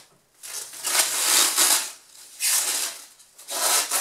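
Thin plastic packaging bag rustling and crinkling as it is handled and pulled off a boat hull, in three bursts, the first and longest lasting about a second and a half.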